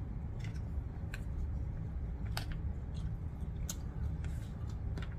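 Close-up eating sounds: a person chewing, with about five sharp wet clicks spread through, over a steady low hum.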